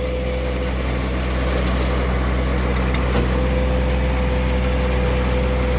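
John Deere 1023E compact tractor's three-cylinder diesel engine running steadily, with a constant whine over its drone.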